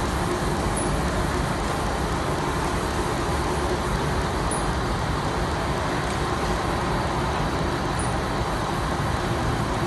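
Steady running noise of a PVC tarpaulin production line, the sheet moving over the rollers, with a faint high chirp about every three and a half seconds.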